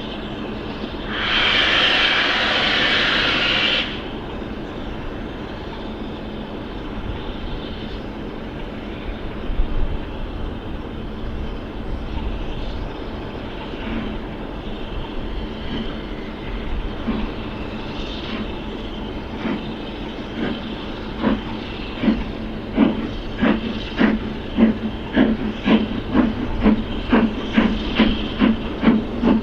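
Steam locomotive: a loud hiss of steam for about two and a half seconds near the start, then a low rumble. In the second half the exhaust beats start and steadily quicken as the engine gets under way and gathers speed.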